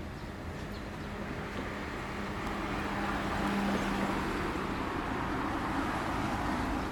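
Background road traffic: a vehicle passing, its noise swelling about halfway through and easing off near the end, over a steady low hum.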